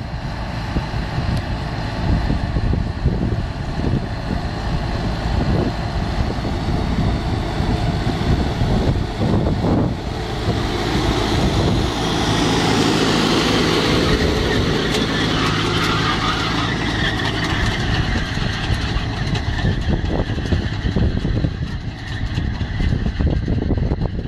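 New Holland TD-series tractor's diesel engine running steadily under load as it pulls a potato planter through tilled soil. The engine hum grows louder and clearer about halfway through, as the tractor runs close by.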